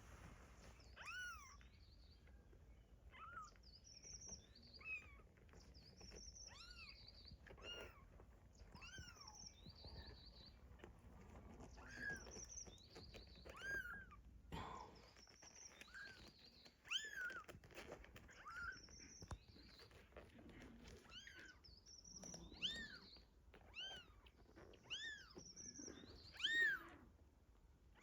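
A kitten mewing over and over in short, high-pitched calls, roughly one a second, the loudest near the end.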